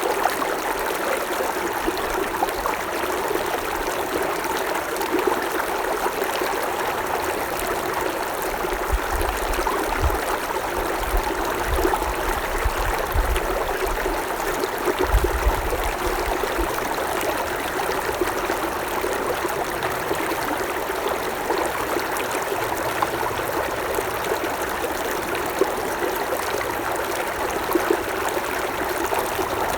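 Creek water running and babbling over stones in a steady stream of small splashes and gurgles, with some low rumbling in the middle.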